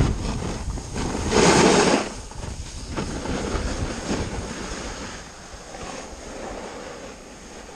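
Snowboard sliding and scraping over packed snow, with wind buffeting the camera's microphone. The rush is loudest for about half a second around a second and a half in, then eases off into quieter gliding.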